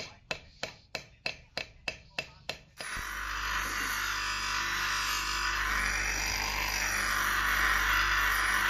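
A hammer strikes metal about nine times at an even pace of roughly three blows a second, each blow ringing briefly, typical of hammer work on a kukri blade. The blows stop and a power grinding tool starts and runs steadily, its pitch swelling and easing once partway through as it bears on the work.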